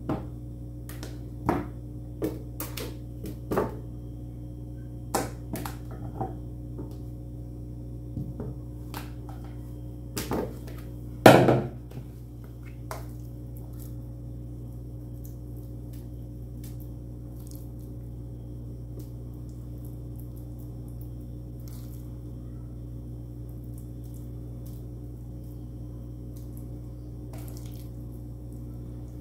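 Fork clicks and small knocks while eating cooked stuffed zucchini, scattered over the first dozen seconds, with one louder crunching knock about eleven seconds in. A steady low electrical hum runs underneath and is all that is left after about thirteen seconds.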